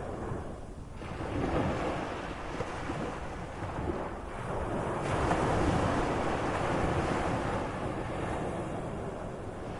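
Medium sea waves washing and breaking, the surf rising and falling in swells every few seconds.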